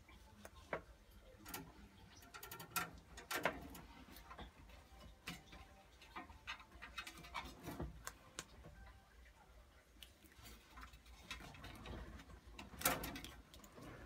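Faint, irregular clicks and taps of hands handling parts at a boiler's sheet-metal casing, with louder clicks about three seconds in and near the end.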